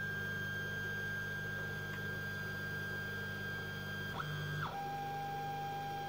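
Stepper motors of a DIY 3D printer driving the Z axis during homing, a steady high whine over a low hum. About four seconds in, the whine slides down to a lower steady pitch.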